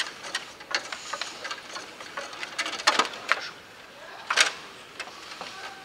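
Irregular knocks and clicks from a Bonzini foosball table in play: the ball being struck by the figures and knocking around the table. Two louder knocks come about three seconds and four and a half seconds in.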